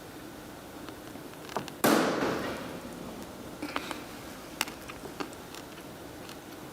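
A sudden loud burst of crackling noise about two seconds in, fading away over about a second, followed by a few light clicks and taps.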